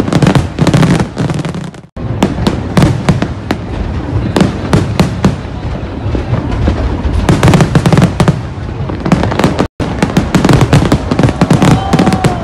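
Aerial fireworks display: many shells bursting in rapid succession, with dense bangs and crackling. The sound cuts out for an instant twice, about two seconds in and near the ten-second mark.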